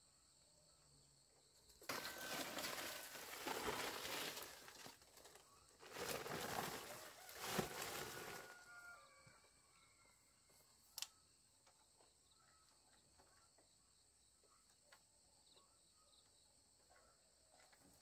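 A steady high-pitched drone of insects, broken by two loud stretches of noise about three seconds each and a single sharp click a little later.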